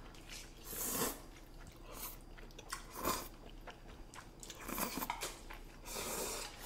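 Slurping and chewing of black bean noodles, close to a microphone, in about five short bursts.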